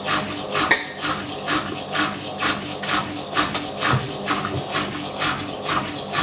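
2001 Simpson Esprit 550 washing machine running, with a rhythmic rasping squeak about twice a second over a low motor hum: the squeaky suspension rods that the owner blames for the noise.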